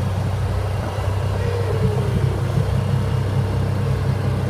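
Steady low rumble of a car's engine and tyres as it drives along a paved road.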